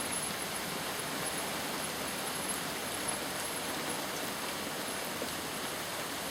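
Pouring rain falling steadily: an even hiss with no let-up.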